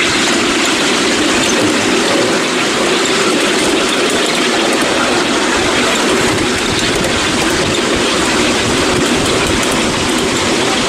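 Miniature railway train running along the track, heard from a riding car behind a miniature BR class 20 electric locomotive: the steady running noise of its wheels on the rails.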